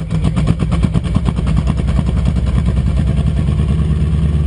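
Enstrom F28F helicopter's four-cylinder Lycoming piston engine running just after start. Its firing pulses quicken and even out over the first couple of seconds into a steady idle.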